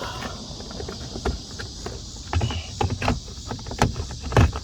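Scattered knocks and clicks of a plastic fog light assembly being handled and pushed into its bumper housing, the loudest near the end. Crickets chirp steadily behind it.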